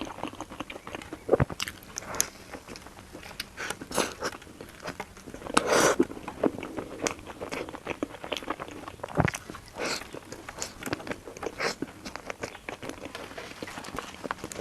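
Close-up sounds of someone biting and chewing crunchy food, with irregular crackles and crunches and a louder crunch about six seconds in.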